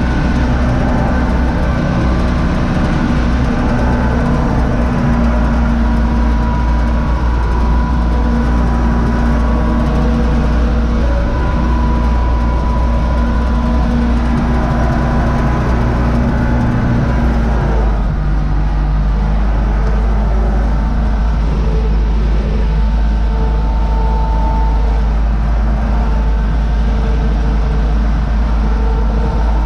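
UTB Universal 650 tractor's four-cylinder diesel engine running steadily, heard from inside the cab while pulling a corn picker. About 17 seconds in, the engine note shifts lower and then runs on evenly.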